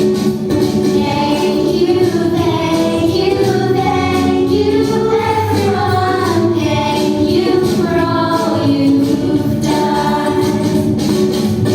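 Choir singing a song in chorus, with a musical accompaniment.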